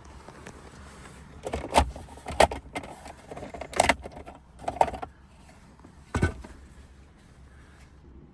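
Five sharp plastic clicks and knocks spread over several seconds, over a faint steady hum: the trim pieces of a VW Phaeton's rear centre console being handled and pressed.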